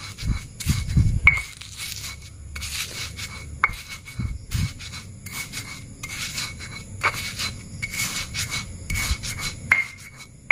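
Stone pestle grinding dry biscuit crumbs in a stone mortar (a cobek and ulekan): repeated gritty rubbing and scraping strokes, with a few sharp clicks of stone knocking on stone.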